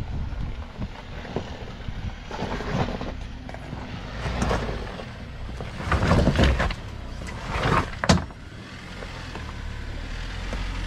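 A 4x4 crawling slowly on a rocky off-road trail: a low steady engine hum with irregular rough scraping noises, the loudest about six seconds in, and a sharp knock near eight seconds.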